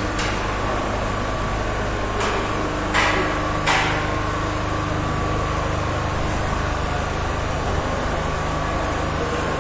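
Steady mechanical din with a constant low hum, with three sharp knocks a little over two, three and three and a half seconds in.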